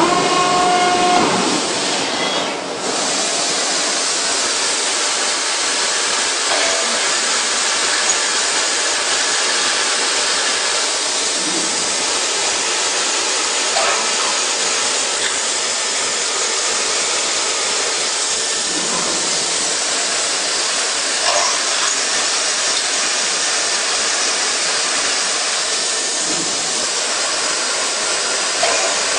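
CNC machining center running a drilling cycle: a loud, steady hiss, with a faint recurring sound about every two and a half seconds as it works from hole to hole.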